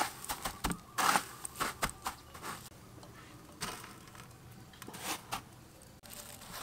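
Hands pressing chicken wings into a tray of dry breadcrumbs: quick crunchy rustles of the crumbs, thick in the first two seconds or so, then a few scattered ones.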